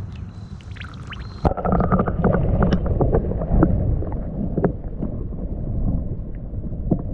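A hooked fish splashing and thrashing at the water surface as it is reeled in to the bank. The splashing starts suddenly about a second and a half in and goes on with quick sharp slaps.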